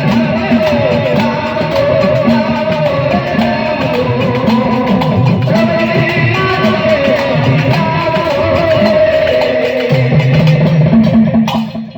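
Gujarati devotional folk song played loudly: a wavering sung melody over instruments and a steady percussion beat, breaking off near the end.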